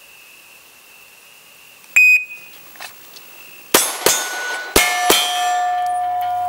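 Four pistol shots in two quick pairs, each leaving the steel targets ringing, after a single sharp ping about two seconds in. A faint steady high tone runs under the start.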